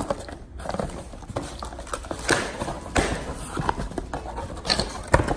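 Cardboard box being opened by hand: clear packing tape peeled and torn off the flaps, with irregular knocks and rustles of cardboard being handled.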